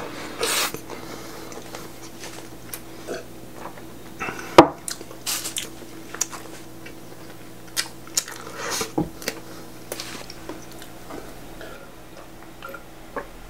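Close-up eating sounds of bread spread with apple jam and topped with cheese: bites and chewing with small crunches of the crust. One loud, sharp knock about four and a half seconds in.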